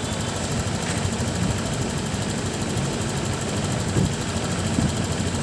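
Honda Click 150i's single-cylinder fuel-injected scooter engine idling steadily, with a few light taps, while its idle speed is set at the throttle body's bypass screw to about 1,700 rpm.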